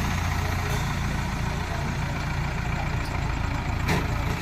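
A heavy vehicle engine idling steadily, with one sharp click about four seconds in.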